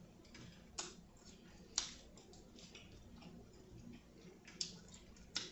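Quiet eating sounds: four sharp, wet mouth clicks and smacks, spaced irregularly, from someone chewing seafood.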